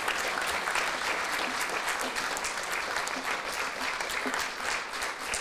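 A large seated audience applauding: many hands clapping in a dense, steady patter.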